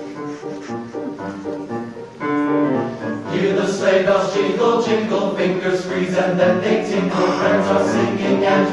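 Men's chorus singing with piano accompaniment. A quieter piano-led opening gives way to the fuller choir sound about two to three seconds in.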